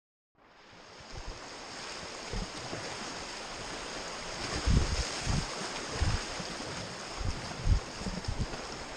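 River water rushing over shallow rapids past an inflatable raft, a steady hiss that fades in during the first second. Several low thumps break through in the second half.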